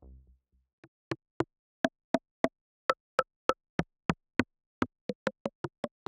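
Short, clicky, rimshot-like percussion hits from a u-he Zebra software synthesizer preset, played in an uneven rhythm of about three to four hits a second. A heavy low synth sound dies away just before the hits begin.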